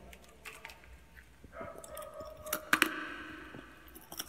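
Crunchy fried chickpeas being chewed in the mouth, with a few sharp crunches about two and a half seconds in.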